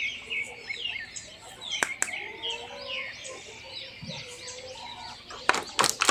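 Birds chirping over and over, many short falling chirps. Near the end, a burst of sharp clicks and crackling handling noise.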